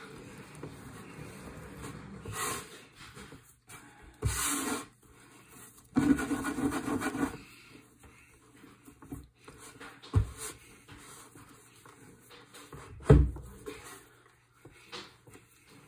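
Semolina-and-egg pasta dough being kneaded by hand on a wooden board: rubbing and pressing, with a few sudden thumps as the dough is pushed and turned, the loudest near the end. A louder noisy stretch comes about six seconds in.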